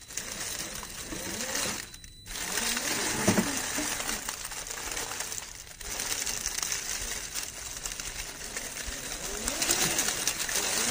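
Whine of an RC rock crawler's 550 brushed electric motor and gearbox, rising and falling in pitch as the throttle is worked, with short pauses about two and six seconds in. The tyres crunch over rock and dry leaves.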